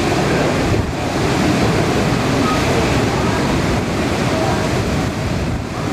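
Storm wind and heavy rain making a steady loud rush, with wind buffeting the microphone. Faint voices show through now and then.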